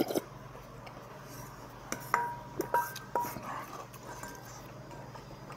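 A wooden spoon knocking against a stainless steel bowl four or five times about two to three seconds in, the bowl ringing briefly after each knock. A single click just at the start.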